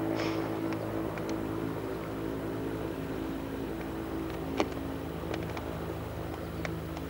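Goodyear blimp's propeller engines droning steadily overhead, with a few light clicks and one sharper click a little past halfway.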